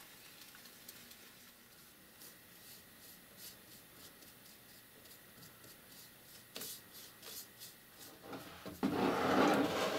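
Paintbrush bristles dragging over a bleached deer antler as watered-down acrylic paint is worked on: faint strokes at first, a light tap about two thirds through, then louder, quick scrubbing near the end.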